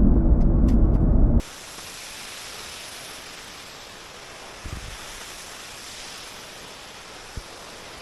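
Music cuts off about a second and a half in, giving way to a steady outdoor hiss of wind-like noise, with two faint low bumps.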